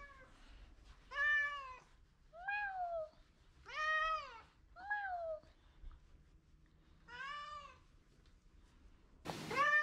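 Persian cat meowing over and over, a drawn-out meow every one to two seconds, each rising then falling in pitch.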